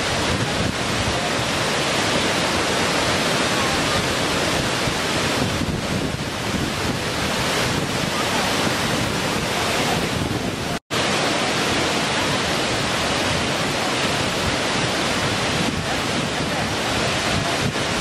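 Waterfall: water cascading over rock into a pool, a steady, even rush of falling and splashing water. The sound cuts out for an instant a little under eleven seconds in, then resumes.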